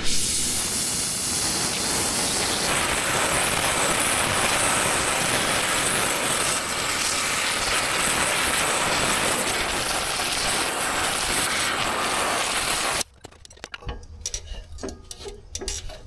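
A loud, steady hiss that cuts off suddenly about thirteen seconds in, followed by a few light clicks and taps.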